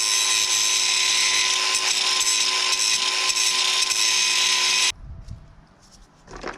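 Electric grinder running at steady speed with a high whine, grinding on a motorcycle chain link; it stops abruptly about five seconds in. A couple of metal clinks near the end.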